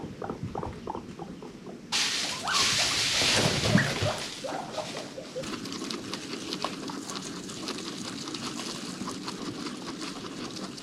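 Guinea pig sounds: a quick run of short low pulses for about two seconds, then an abrupt switch to a rustling hiss with scattered clicks and a few brief squeaks, loudest just after the switch and steadier after that.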